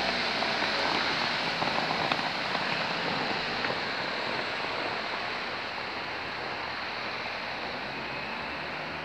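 Street traffic on a wet road: a steady hiss of tyres on wet tarmac, with a single-decker bus's diesel engine fading as it pulls away.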